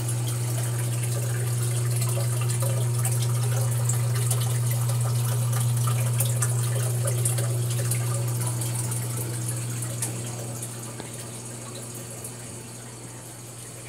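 Water pouring from a homemade canister filter's return pipe into a terrarium pool, splashing and trickling steadily over a constant low hum from the filter's pump. The splashing grows fainter about ten seconds in while the hum carries on.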